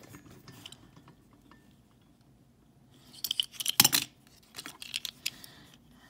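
Small die-cast Matchbox toy vehicle handled in the fingers, giving light clicks and clinks of metal and plastic as it is turned over, in a cluster about three to four seconds in and a few more around five seconds.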